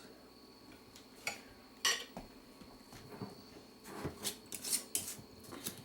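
Glass pickle jar and its lid handled while someone tries to twist the lid off: a series of sharp clicks and clinks, a few at first and several close together near the end. The lid is stuck because the jar has sealed itself.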